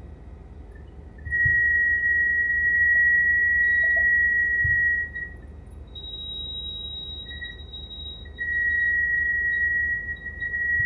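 A steady high-pitched tone sounds for about four seconds, breaks off, and comes back for the last few seconds, over the low rumble of the helicopter.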